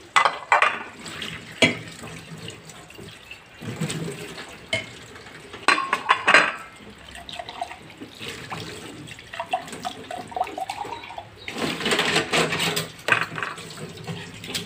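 Tap water running and splashing into a stainless steel sink while dishes are rinsed by hand, with a bowl, a glass and spoons clinking against each other and the steel.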